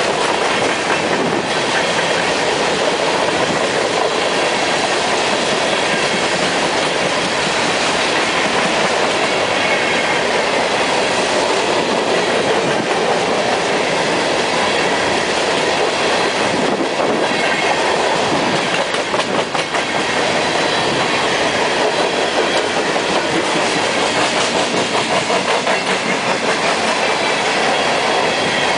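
Covered hopper cars of a unit freight train rolling past close by: a loud, steady rumble and rattle of steel wheels on rail, with the clickety-clack of wheels over the rail joints.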